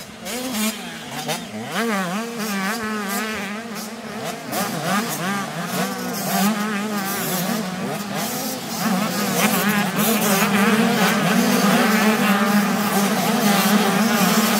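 Several 85cc two-stroke motocross bikes revving hard through a corner, their engine notes rising and falling as the riders shift and accelerate. The sound grows louder and denser about two-thirds of the way in as a pack of bikes comes through together.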